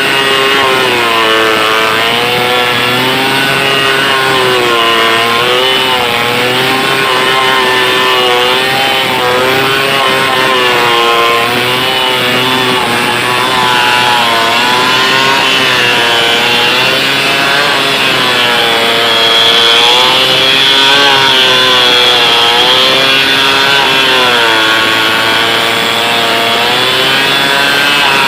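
Stihl 070 two-stroke chainsaw running steadily under load, sawing through a big log. Its engine note dips and rises again every second or two as the chain works through the wood.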